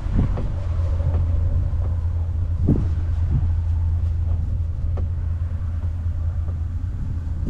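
Steady low vehicle rumble, mixed with wind noise on the microphone, with a few short knocks.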